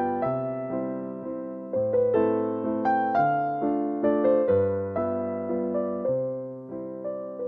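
Background music: a gentle piano or electric-piano piece, struck notes decaying, with chords changing every second or two over a bass line.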